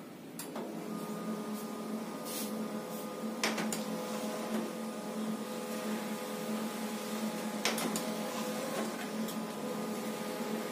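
A black-and-white 2-in-1 printer-scanner printing a two-page job: a steady motor hum that starts about half a second in, with a few sharp clicks a few seconds apart as the paper is fed through.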